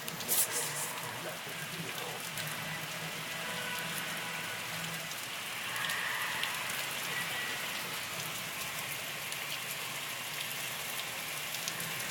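Steady rain falling, an even hiss with many scattered sharp drop ticks and a brief louder clatter of drops near the start.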